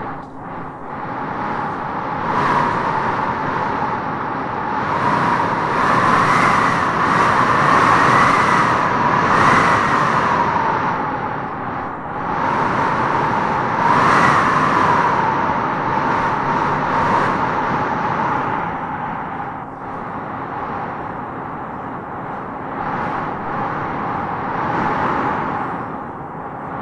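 Wind blowing in gusts, swelling and easing over several seconds, with a whistling tone that rises and falls in the strongest gusts, about a quarter of the way in and again about halfway.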